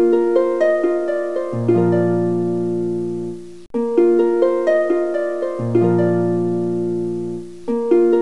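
Background music: a plucked, harp-like melody over held low notes, a short phrase that repeats about every four seconds with a brief break before the second round.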